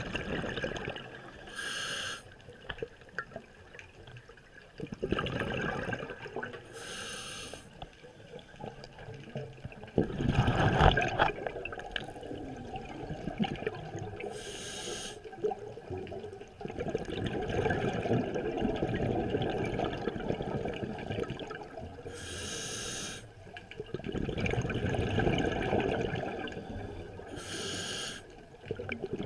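A scuba diver breathing through a regulator, recorded underwater: a short hiss of each inhalation alternating with a longer, louder gurgling rush of exhaled bubbles, about every five to six seconds, five breaths in all. The loudest bubble burst comes about ten seconds in.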